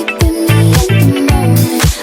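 Disco-pop song playing: a pulsing bass line on a steady beat, with sustained melodic lines above.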